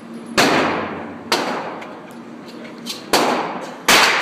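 Four gunshots at an irregular pace, two close together near the start and two more about three seconds in, each with a short echoing decay.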